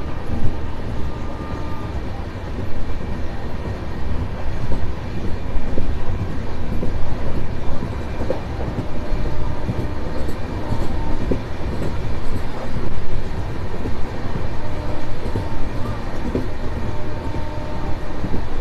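Express train running at speed, heard from an open coach doorway: a continuous rumble of steel wheels on the rails, with faint ticks of the wheels passing rail joints.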